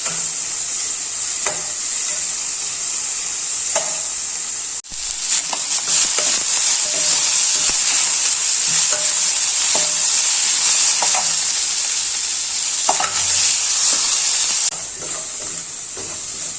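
Chopped onion and ginger garlic paste sizzling as they sauté in hot oil in a pan, a steady frying hiss, with occasional light scrapes and taps of the spoon stirring them. The sizzle cuts out for an instant about five seconds in, comes back louder, and softens again near the end.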